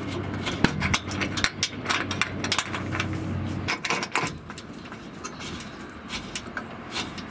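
Metal turnbuckle and its hook clicking, tapping and scraping against the expanded-metal mesh of a 4WD roof cage as it is hooked on. A steady low hum in the background stops about halfway through.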